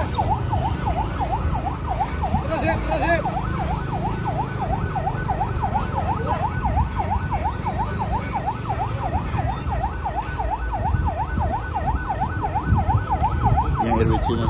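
Electronic siren yelping rapidly, about three up-and-down sweeps a second, over the low rumble of truck engines.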